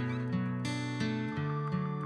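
Background music of plucked acoustic guitar, a new note or chord every few tenths of a second.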